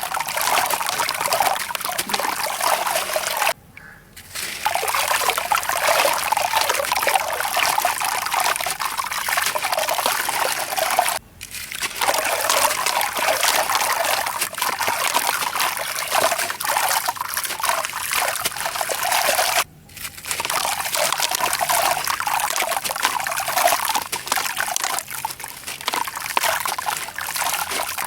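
Sand and chunks of concrete crumbling, with a dense crackle of grains trickling and pouring down. The sound breaks off briefly three times, about four, eleven and twenty seconds in.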